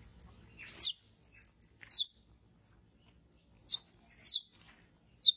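Baby macaque giving five short, high-pitched squeals, each falling in pitch: the frightened crying of an infant monkey.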